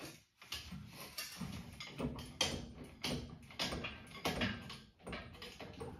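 Hand-pumped hydraulic engine hoist being worked stroke by stroke to lift an engine hung on chains, giving short creaks and clanks about twice a second.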